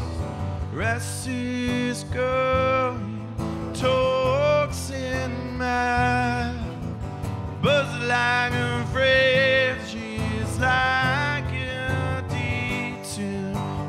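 A man singing live with his own acoustic guitar accompaniment, holding long sung phrases over the guitar.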